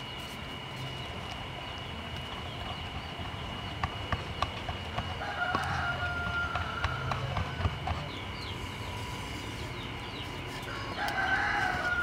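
A rooster crows twice, about five seconds in and again near the end, the second crow the louder. In between come sharp knocks of a wooden pestle striking a wooden mortar as chili sauce is pounded.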